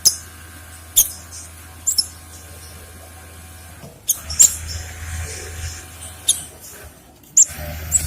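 Cinereous tit (gelatik batu) giving short, sharp, high chirps, about eight of them spaced irregularly, over a low steady hum.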